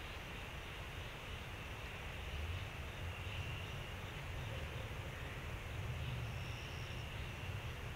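Insects trilling faintly in the woods, a high steady buzz that swells and fades, over a constant low rumble.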